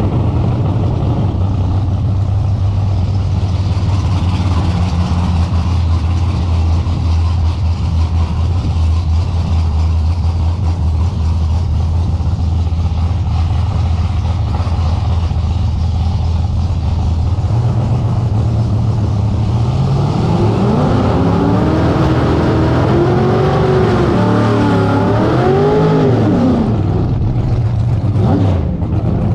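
Drag race car's engine running with a steady low drone, then about two-thirds of the way through its revs climb and swing up and down several times.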